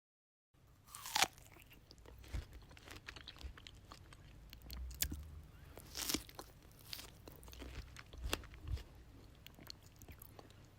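A person biting into and chewing fresh strawberries close to the microphone: a sharp bite about a second in, then irregular wet, squelchy chewing clicks and smacks, with louder bites around the middle.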